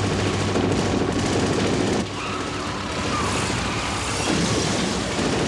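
Sustained rapid automatic gunfire: several machine guns firing long bursts together, with a brief dip about two seconds in.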